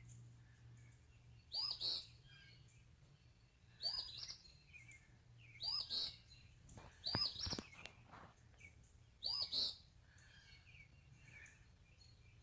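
Small birds calling: short, sharp chirps, often in pairs, repeated about every two seconds over a faint steady low hum.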